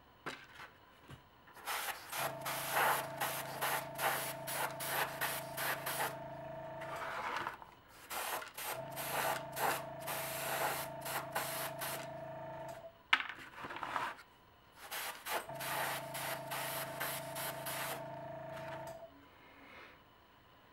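Airbrush spraying paint in three bursts of about four to five seconds each, a fluttering hiss of air and paint, with the steady hum of the airbrush compressor's motor under each burst.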